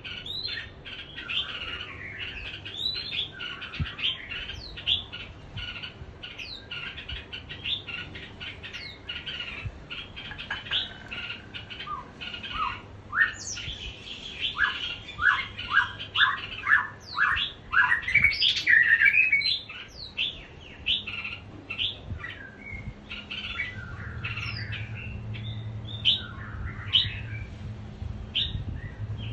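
Small caged songbirds giving rapid, sharp chirps and squawks, busiest and loudest about halfway through. A low steady hum comes in near the end.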